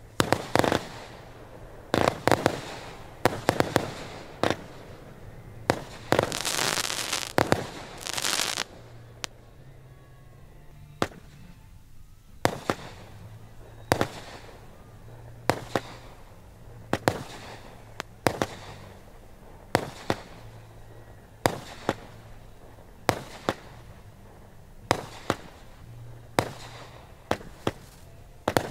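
A fireworks display: a rapid string of sharp bangs from bursting fireworks, about one to two a second. A denser stretch of crackle and hiss comes around six to eight seconds in, followed by a short lull.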